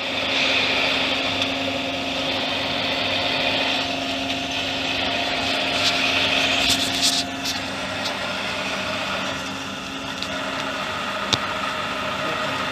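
A steady mechanical hum with a constant pitch and a hiss over it, broken by a few faint clicks and knocks.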